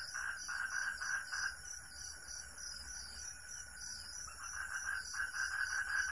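Tropical forest insect chorus: several insects calling at once in layered, rhythmic pulsing trills, a high steady one above. The lowest pulsing call stops about a second and a half in and starts again near the end.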